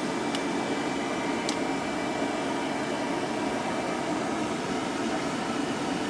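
Dog-grooming hair dryer blowing steadily, a constant rush of air with a faint high whine that drops away about four seconds in. Two faint ticks come in the first second and a half.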